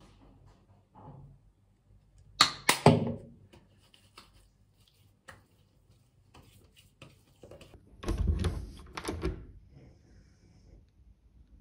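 Handling of a plastic skincare bottle at a bathroom sink: a few sharp clicks and knocks as it is capped and set down. Later comes a short run of duller pats as hands press the liquid onto the face.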